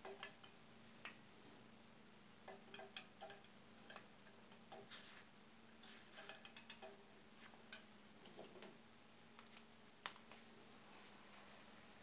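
Scattered faint clicks and light taps of a glass sight-glass tube being handled against a boiler's brass gauge valves, with one sharper click about ten seconds in, over a faint steady hum.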